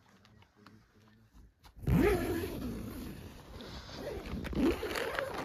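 Tent door zipper being pulled open, a long rasping zip that starts suddenly about two seconds in, with a second loud pull near the end.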